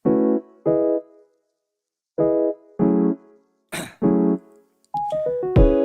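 Background music: piano chords played as short separate stabs with gaps between them, then a quicker run of notes near the end.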